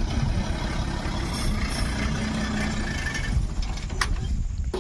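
Diesel engine of an old Tata school bus running at low speed as the bus rolls slowly over rough ground and eases off. There is a brief sharp click about four seconds in.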